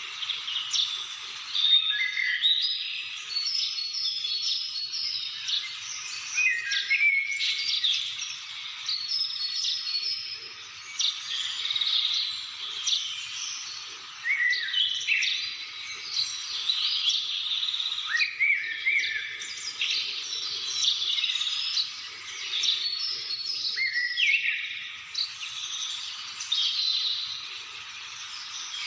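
A chorus of many birds calling and singing at once: dense, overlapping high chirps with quick rising and falling whistled notes.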